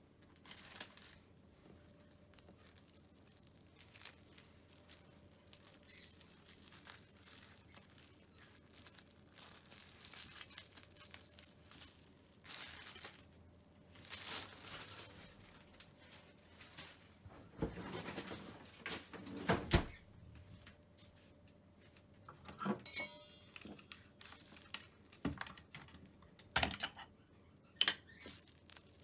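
Faint handling noises: scattered rustling and crinkling with a few sharp clicks and knocks, busier in the second half, the sharpest knocks coming in the last few seconds, over a faint steady hum.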